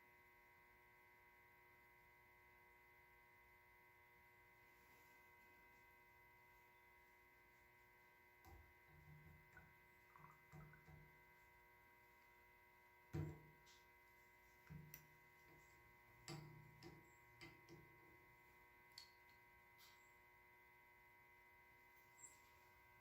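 Near silence with a steady electrical hum; from about eight seconds in come scattered faint knocks and scrapes, the loudest a little past halfway, from working the master cylinder's piston back and forth during bench bleeding.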